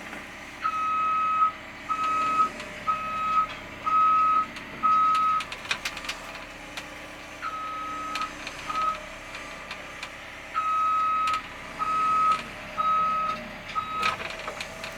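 Cat 320 excavator's travel alarm beeping as the machine tracks forward onto the trailer. It gives a run of five even beeps, stops, gives two more, stops again, then four more as the tracks are inched along. A few sharp metallic clicks and clanks come between the runs.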